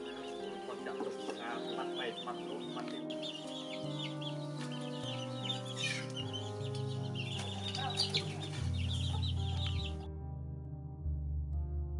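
Chickens clucking over slow background music of long held notes. The clucking cuts off about ten seconds in, leaving only the music.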